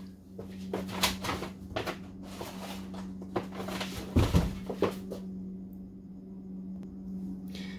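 Scattered knocks, taps and rustling from a person moving about and handling things out of view, with a heavier thump about four seconds in, then quieter; a steady low hum underneath.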